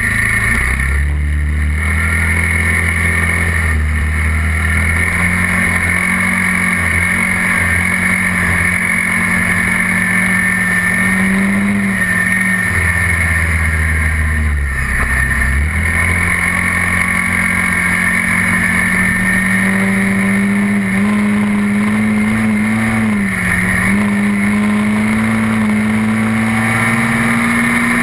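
SYM Quadlander 300 ATV's single-cylinder four-stroke engine running under way on a gravel track. The engine note eases off about halfway through, then climbs steadily as the quad speeds up again.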